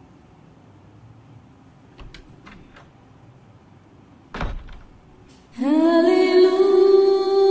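Low room sound with a few faint clicks and a short thump, then, about a second and a half before the end, a song begins loudly with a voice humming one long held note.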